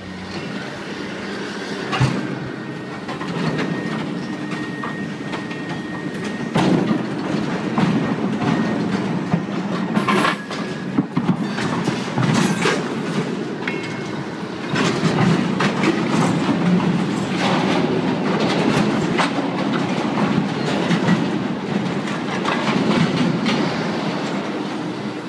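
Retired BC Rail boxcars rolling slowly over an uneven, sunken track, wheels rumbling and clanking with frequent knocks as the cars lurch along. About two seconds in, a thin steady wheel squeal runs for several seconds, and a shorter one sounds near the middle.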